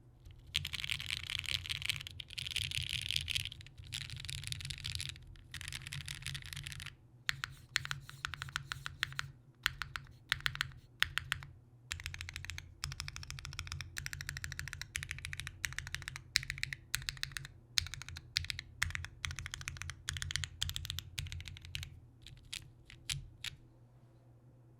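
Custom mechanical keyboard with linear Gateron X switches lubed with Krytox 205g0, a half aluminium plate and GMK keycaps, being key-spammed. The first several seconds are a dense, fast clatter of keys, followed by quick runs of separate keystrokes that stop shortly before the end.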